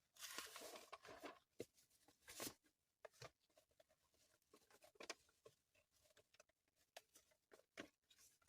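Faint handling noises: rustling in the first second or so and again a little later, then scattered light clicks and taps as objects are moved about.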